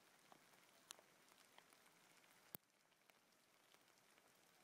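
Faint hail falling on a forest floor: a soft hiss with scattered light ticks of hailstones landing, and one sharper click about two and a half seconds in.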